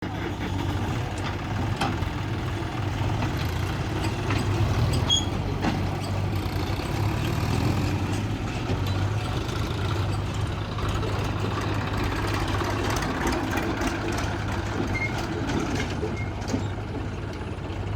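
Backhoe loader's diesel engine running steadily while at work, with scattered knocks and a few brief high squeaks.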